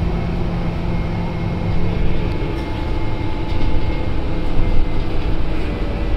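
Interior noise of a city bus on the move: a steady low engine and road rumble with a thin, steady whine above it.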